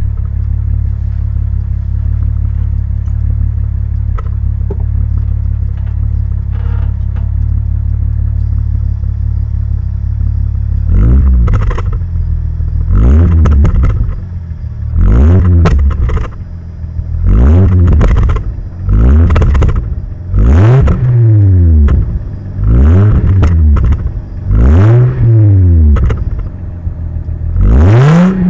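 Volkswagen Golf VR6's narrow-angle V6 heard at the tailpipe, idling steadily for about eleven seconds, then blipped again and again, roughly every two seconds, each rev rising sharply and falling back to idle. The exhaust still has its stock manifolds and catalytic converter in place.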